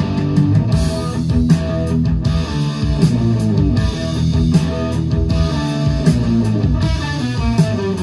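Heavy metal track with electric guitar and drums playing loudly through loudspeakers driven by 845 single-ended triode tube amplifiers, picked up in the listening room.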